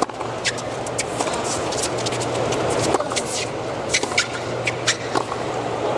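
Tennis rally on a hard court: the ball struck back and forth by rackets and bouncing, heard as a string of sharp hits, over a steady murmur from the stadium crowd.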